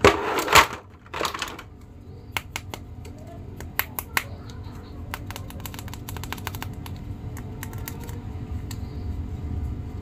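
Hard plastic action figures being handled over a clear plastic tray: a quick irregular series of small clicks and taps, after a short burst of rustling noise at the start.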